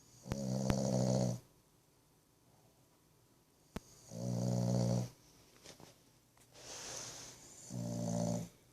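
A sleeping pet snoring: three long, buzzing snores spaced about three and a half seconds apart, with a softer breathy exhale between the second and third.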